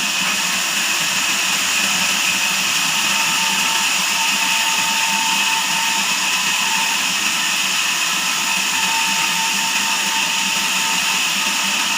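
Band sawmill running steadily, giving a continuous high whine and hiss with a faint tone near 1 kHz that comes and goes.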